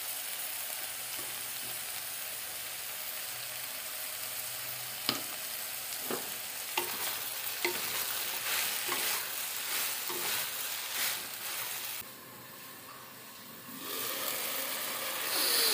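Chopped vegetables sizzling in oil in a hot wok. From about five seconds in, a wooden spatula knocks and scrapes against the pan as they are stirred. Near the end the sizzle drops for a couple of seconds, then comes back as the glass lid is lifted off.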